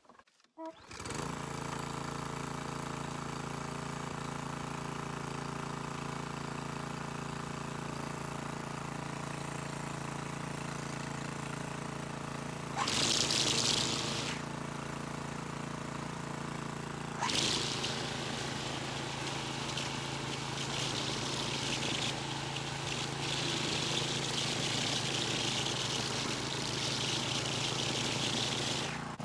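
Briggs & Stratton engine of a DR walk-behind string trimmer mower starting on the first pull about a second in, with no priming or choke, then running steadily. About 13 s in and again from about 17 s on, a loud hissing rises over the engine as the spinning trimmer line cuts against a rock.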